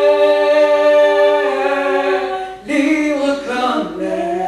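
A woman singing long held notes, without instrumental accompaniment; the voice breaks off briefly about two and a half seconds in, then carries on.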